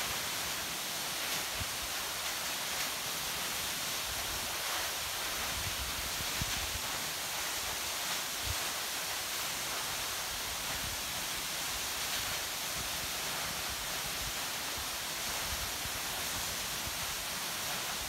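Waterfall plunging onto rocks and a shallow pool: a steady, dense hiss of falling water, with occasional short low buffets of wind on the microphone.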